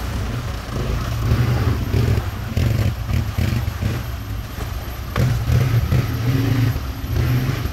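ATV (quad bike) engines running and revving unevenly as the machines drive through a shallow rocky stream, with water splashing at the wheels and a few knocks.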